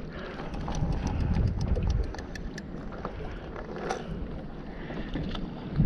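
Wind rumbling on the microphone over water slapping against a small boat's hull, with faint scattered ticks and a short crackle about four seconds in.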